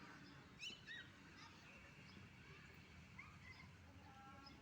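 Faint birds chirping, short scattered chirps and twittering glides, with a brief pitched call near the end.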